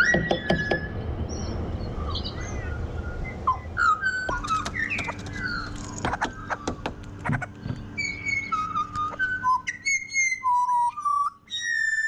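Several pied butcherbirds singing in chorus: clear, flute-like whistled notes that glide up and down. The singing thickens from about four seconds in, with sharp clicks mixed in.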